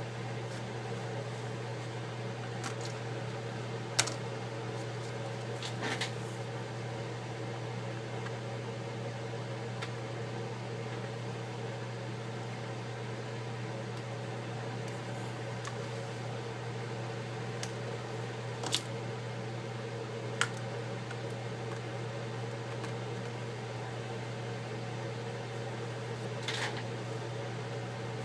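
A steady low machine hum with a fan-like hiss, broken by a few short clicks and taps as small parts and tools are handled.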